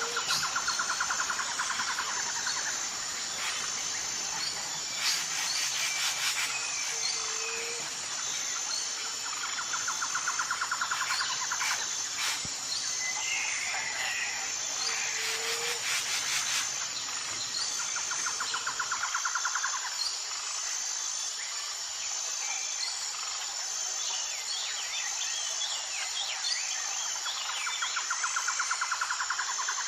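Jungle ambience: a steady high-pitched insect chorus, with a rapid trill that comes back every several seconds. Scattered bird calls join in, including short low whistles in the first half and a quick chirp about halfway through.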